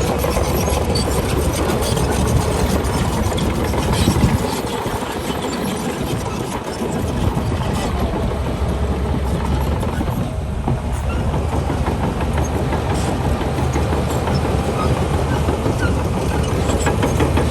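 Shantui DH17C2 crawler bulldozer's diesel engine running steadily, with a continuous fine metallic clatter. The sound dips somewhat about four to seven seconds in.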